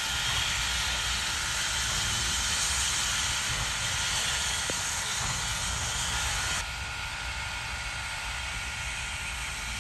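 Steam locomotive blowing off steam through its open cylinder cocks, a loud steady hiss with a low rumble beneath. About two-thirds of the way through the hiss drops off sharply, leaving a softer hiss.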